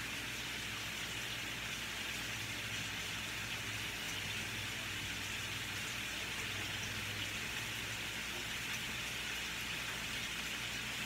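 Ground beef frying in a skillet of onions, butter and bacon grease, with a steady, even sizzle.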